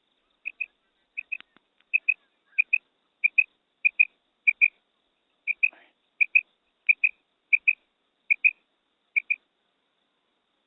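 Female quail calling: a high-pitched doubled note, repeated about every two-thirds of a second, then stopping near the end.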